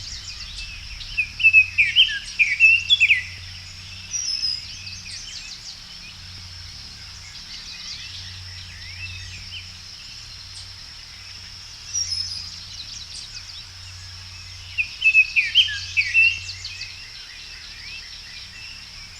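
Songbirds singing outdoors: quick, sweeping chirps in two lively bursts, one a second or so in and one near the end, with scattered single calls between. A steady high-pitched hum runs underneath.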